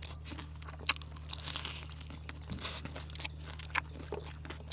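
Close-up chewing of a crispy battered fried onion stuffed with beef: irregular crunches and crackles of the fried crust between the teeth. A steady low hum runs underneath.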